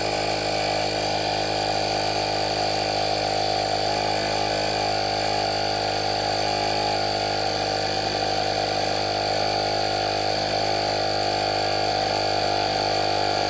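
Cordless mini air compressor (portable tire inflator) running steadily as it pumps up a basketball towards its preset 8 PSI, a constant motor-and-piston hum.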